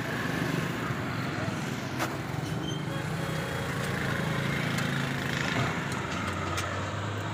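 Steady low mechanical hum of a motor running nearby, with a sharp click about two seconds in and a few fainter ticks from hands and tools working on the sheet-metal hybrid battery cover.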